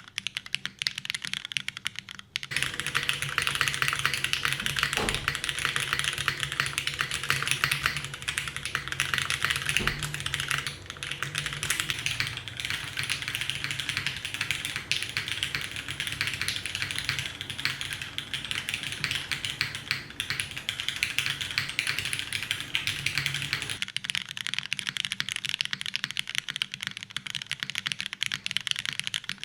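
Continuous fast typing on a custom mechanical keyboard with lubed Cherry MX Black linear switches on an aluminum plate and GMK doubleshot ABS keycaps: a steady stream of rapid key clacks.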